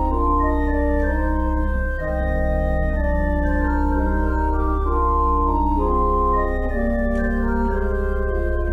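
Church organ playing slow sustained chords on two keyboards, the upper notes moving step by step over a deep bass note that is held throughout.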